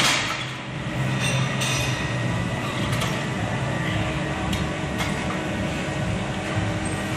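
Weight-stack shoulder press machine in a gym: one sharp clank at the start, then a few light metallic clicks and knocks over a steady background hum.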